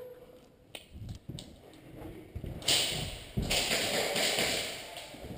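Footsteps and the shuffle of clothing and gear of a player moving on foot, with a sharp tap about a second in and two loud hissing rushes of noise in the second half.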